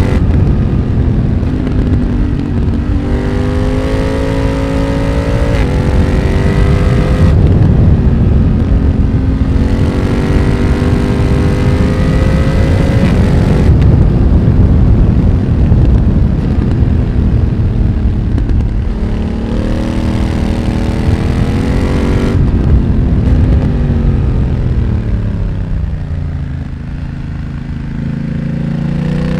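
A BMW F900R's parallel-twin engine through its Mivv X1-M aftermarket exhaust, pulling hard and rolling off while riding. Its pitch climbs and drops several times as the gears change and the throttle opens and closes.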